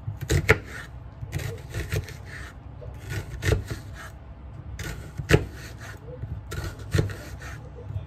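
Kitchen knife slicing through an onion on a bamboo cutting board: rasping cuts through the onion, each ending in a sharp knock of the blade on the board, a few times over.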